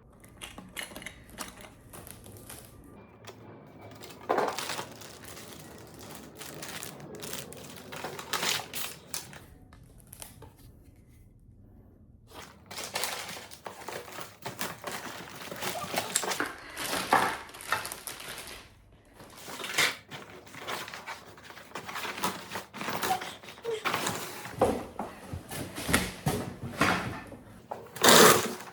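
Unboxing handling noises: plastic packaging crinkling and rustling, with irregular knocks and thunks as the paddleboard's accessories are moved about.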